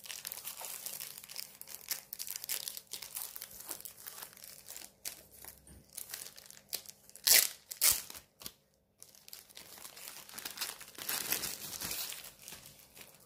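Clear plastic wrapping crinkling and crackling as a rolled diamond painting canvas is handled. Two louder crackles come about seven seconds in, then a brief pause before the crinkling resumes.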